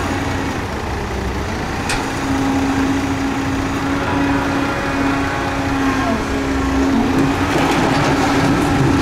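CAT 320B excavator's diesel engine running steadily under load as it digs soil and swings the full bucket over a dump truck, with one sharp click about two seconds in.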